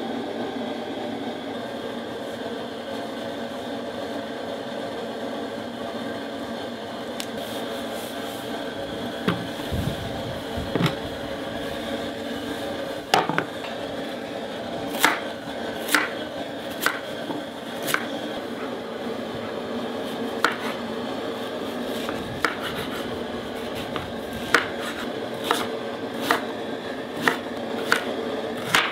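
A chef's knife chopping root vegetables on a wooden cutting board: single sharp knocks of the blade on the board, a few at first from about a third of the way in, then about one a second. A steady background noise runs underneath.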